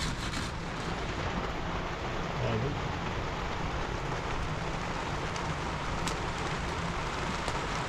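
Steady rain falling, with a few faint ticks in the second half.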